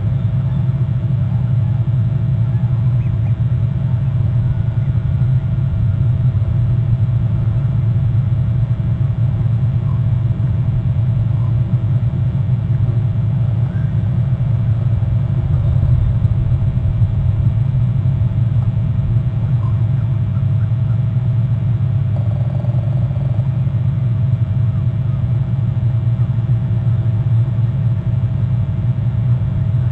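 Steady low rumble that does not change, with a faint steady hum above it and a few faint short chirps.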